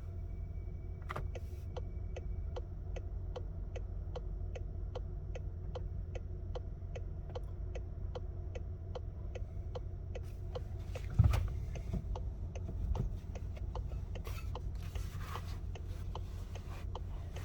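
Low steady rumble inside a slowly rolling Volkswagen Golf R's cabin, with a turn-signal indicator ticking about three times a second for most of the first ten seconds. A single louder thump comes about eleven seconds in.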